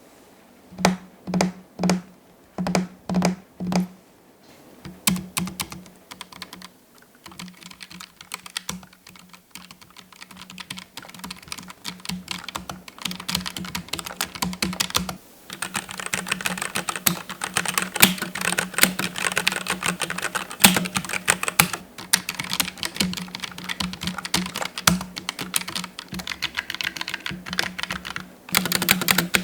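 Typing on a Keychron K1 V4 low-profile mechanical keyboard. It starts with a handful of separate keystrokes about half a second apart, then speeds up to fast, continuous typing from about halfway on, with a short pause near the end.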